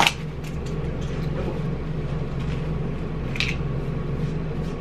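Lid popping off a foam takeout cup with one sharp snap at the start, over a steady low electrical hum.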